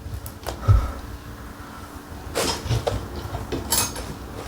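Scattered clicks and knocks of small metal hardware being handled: M6 screws, washers and spacers clinking against a metal TV wall-mount bracket, with a low thump under a second in and a brief metallic rattle near the end.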